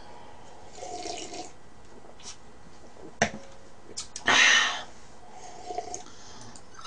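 Quiet sipping and swallowing of red wine from a wine glass, with a sharp click about three seconds in, then a louder half-second hiss a second later.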